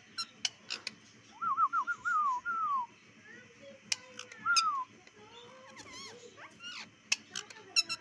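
Rose-ringed parakeets calling: quick runs of short arched, whistly notes, each run ending in a longer falling note, with more brief chirps later. Scattered sharp clicks sound in between.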